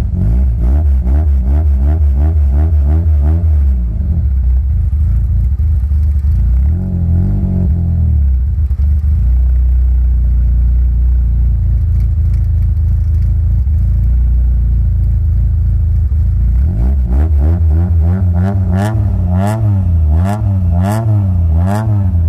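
Exhaust of a Toyota 4A-GE 20-valve 'Silvertop' four-cylinder engine, set up with adjustable cam pulleys, being revved in repeated short rises and falls. It settles to a steady idle for several seconds in the middle, then is blipped again in quick succession near the end, with a few sharp snaps.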